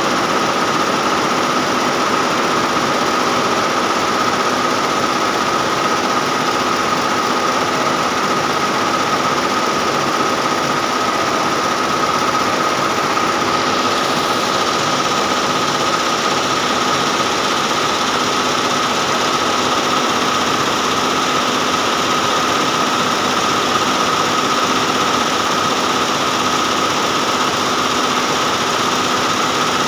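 Multi-head DIAMOND computerized embroidery machine running, its many heads stitching together in a steady rapid clatter with a constant high hum.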